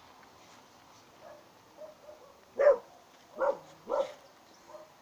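Dog barking: three loud, sharp barks in quick succession about halfway through, after a few fainter yaps.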